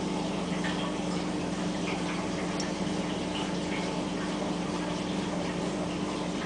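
Steady running-water noise of an aquarium's circulation, with a constant low hum from the pump and a few faint ticks.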